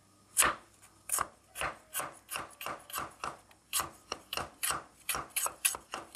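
Cleaver slicing a lemongrass stalk into thin rings on a cutting board: a quick, even run of crisp cuts, two to three a second, each blade knocking down on the board. The cutting starts about half a second in.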